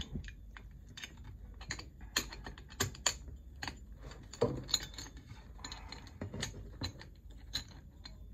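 Irregular clicks, taps and light rattles of a brushless sewing-machine servo motor and its plastic mounting parts being handled and fitted together by hand.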